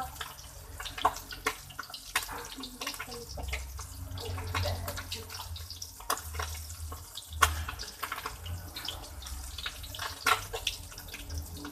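Water running from a tap into a sink, with frequent knocks and clatters of things being handled in the water.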